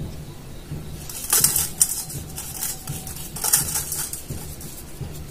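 Salt grains sprinkled from the fingers onto a stainless steel bowl of boiled eggs, a fine gritty pattering in two short bursts, about a second in and again about three and a half seconds in.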